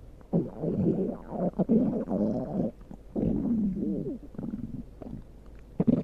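Stomach growling: irregular gurgling rumbles, one long run through the first half, then a second gurgle with a wavering pitch about three seconds in that fades out, and a short one at the very end.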